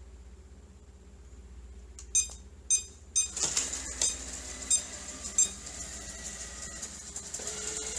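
Robot vacuum cleaner powering up: three short high electronic beeps about half a second apart, then its motors start running, with a few more single beeps over the running sound.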